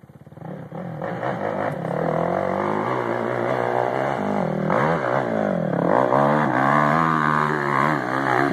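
Quad (ATV) engine revving hard under load on a steep hill climb, its pitch rising and falling repeatedly as the throttle is worked. It comes in about half a second in and grows loud about a second in.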